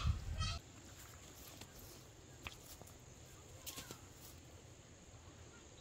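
Quiet rural outdoor ambience with a few faint, short clicks and chirps. A brief voice-like sound at the start cuts off abruptly about half a second in.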